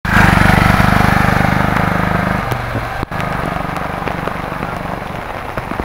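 A small vehicle engine running with an even low pulse over the steady hiss of heavy rain.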